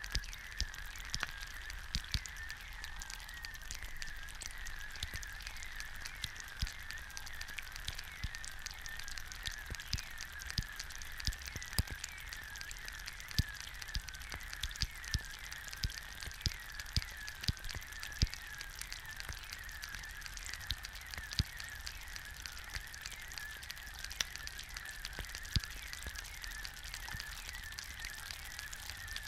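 An egg frying in a hot pan: continuous sizzling and bubbling with frequent sharp pops and crackles. A squeaky, warbling hiss wavers around one pitch throughout.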